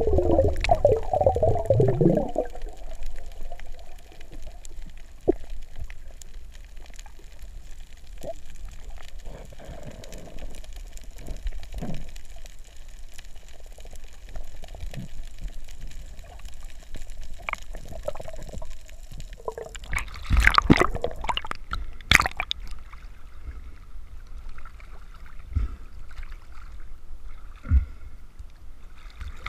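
Sea water heard through an underwater camera while snorkeling: a bubbling gurgle for the first couple of seconds, then a faint muffled hiss with scattered small clicks. About twenty seconds in come a few loud splashes.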